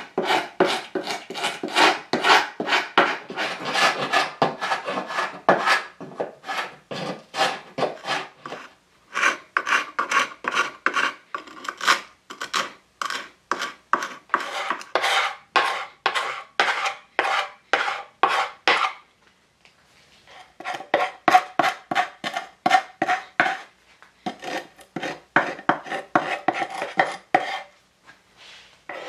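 Wood screws being driven by hand with a screwdriver into the wooden parts of a table, each twist giving a rasping, creaking stroke, about three to four a second, in runs of several seconds with short pauses between screws.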